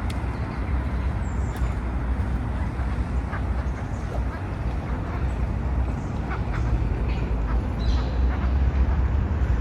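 Wind rumbling on the microphone over outdoor street ambience: a steady low rumble and even noise, with a few faint short calls here and there.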